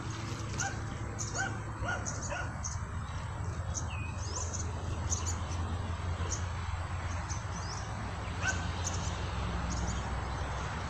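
Birds chirping and a dog barking, over a steady low rumble.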